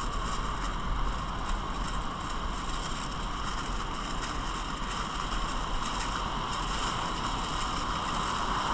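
Aluminium foil crinkling in short rustles as it is folded into a parcel by hand, over a steady wash of ocean surf.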